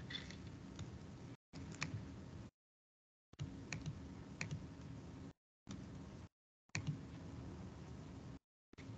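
Faint laptop keyboard and mouse clicks, a few scattered clicks over a low hiss that drops out abruptly several times.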